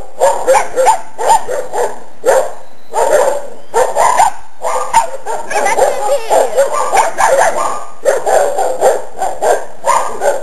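Young dogs barking at a chicken: short high-pitched barks, several a second, in bursts with short pauses.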